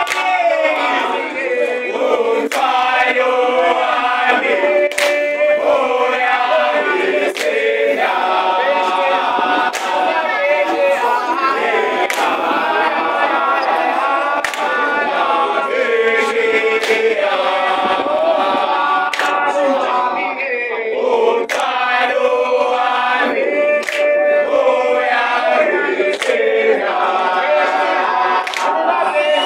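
A group of young men singing together a cappella in a chant-like song, with sharp hand claps about once a second.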